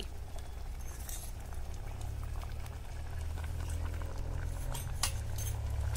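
Chana dal bubbling in jaggery syrup in a metal pot, with scattered small pops over a low steady rumble.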